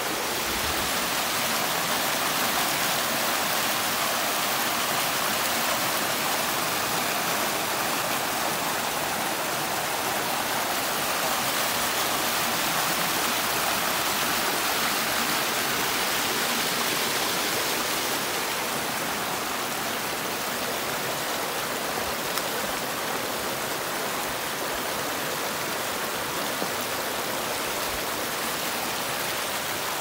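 A small waterfall and its stream rushing and splashing over rock into a pool in a steady, even wash of water noise that softens slightly about two-thirds of the way through.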